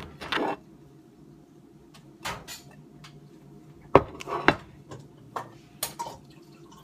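A utensil clinking and knocking against a saucepan and a plate as pasta is dished out: a handful of separate knocks, the loudest about four seconds in.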